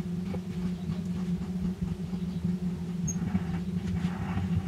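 Steady motor hum from a power drill turning a tap that cuts threads into a steel bar. A scratchy cutting and grinding sound grows over the last second and a half as the tap bites deeper.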